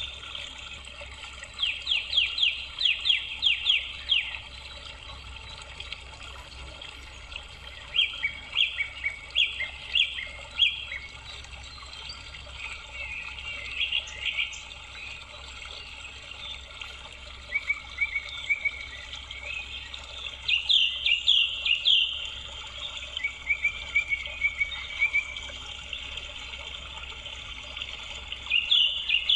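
A songbird singing in short, repeated phrases of quick high chirps and fast trills, with pauses of a few seconds between phrases, over a steady low background hum.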